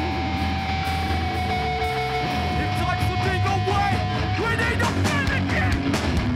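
Hardcore punk band playing live: distorted electric guitars and bass over drums, with a long held note ringing through the first four seconds or so.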